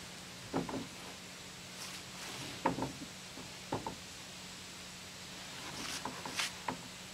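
Hands knocking and patting on the coop's wooden exterior sheeting: a few short knocks, mostly in pairs, in four small clusters.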